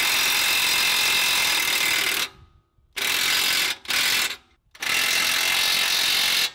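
Cordless impact wrench hammering nylon lock nuts down onto bracket bolts. It runs in bursts: a long run of about two seconds, two short blips, then another long run.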